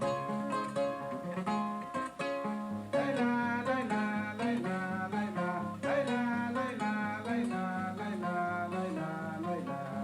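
Kora, the West African harp-lute, plucked in a quick repeating pattern. From about three seconds in, a voice sings over it in gliding, ornamented lines.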